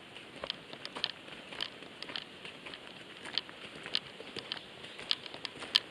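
Footsteps on a wet gravel forest track, about two steps a second, each a short crunch.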